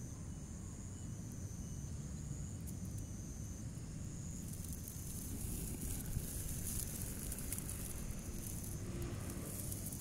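Insects chirping in thin, high, steady trills that start and stop, over a low rumble on the microphone. About halfway through, a louder crackling hiss joins in, like dry grass rustling.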